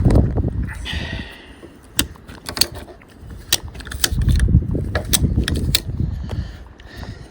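Ratchet strap being cranked tight around a gas strut to compress it, its pawl giving sharp clicks in irregular short runs, with wind rumbling on the microphone.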